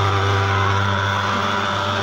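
Portable thermal fogging machine running, a steady low buzzing drone as its pulse-jet engine pushes insecticide fog out of the long barrel.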